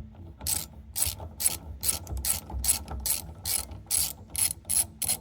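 Hand socket ratchet being worked on a bolt during water pump work: a steady run of short raspy clicking strokes, about two a second.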